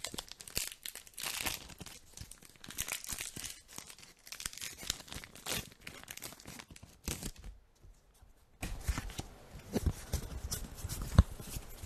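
Foil booster-pack wrapper crinkling and tearing open by hand. After a short lull about eight seconds in, the trading cards are handled and slid against each other, with soft taps and one sharp tap near the end.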